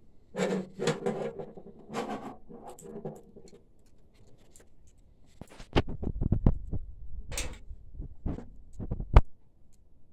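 Printer parts being handled and fitted by hand: a few seconds of scraping and rubbing, then a run of sharp clicks and knocks, the loudest near the end.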